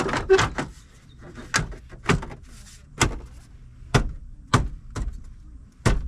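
A series of sharp knocks and clicks, about seven of them, irregularly spaced half a second to a second apart, like hard parts being handled and knocked against one another.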